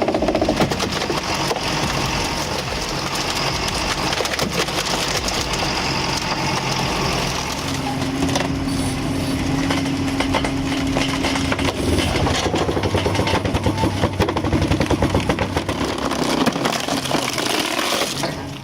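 Heavy forestry machine's engine running under load while wood is crushed and cracks, with a steady whine for a few seconds midway.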